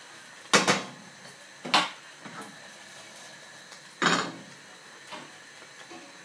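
Three sharp knocks of cookware: a frying pan and utensils being handled on the stove. The first comes about half a second in, the second about a second later, and the third, the loudest, about four seconds in.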